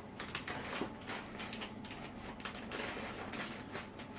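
Irregular soft rustling and scraping from hands working food on a paper-lined base, several short sounds a second.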